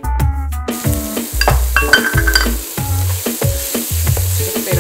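Diced onion sizzling in hot oil in a nonstick frying pan and being stirred with a spatula, the sizzle coming in under a second in. Background music with a steady bass beat plays throughout and is as loud as the frying.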